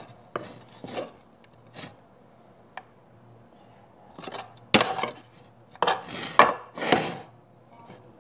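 Paper rustling and crinkling in a string of short bursts as shawarma rolls are wrapped in white paper on a tray, with a sharp click about three seconds in. The loudest rustles come between about five and seven seconds in.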